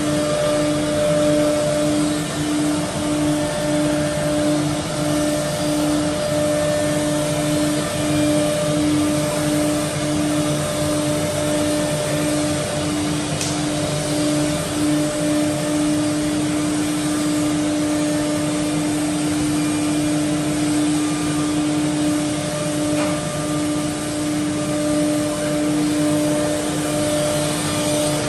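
Four-spindle CNC router cutting MDF panels with dust extraction running: a steady machine whir carrying a strong held tone. The tone breaks into short pulses about twice a second, holds steady for several seconds past the middle, then pulses again.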